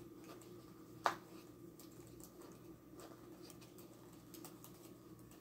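Quiet handling of a small jewellery box and earrings: faint light clicks and taps over a low steady hum, with one brief squeak about a second in.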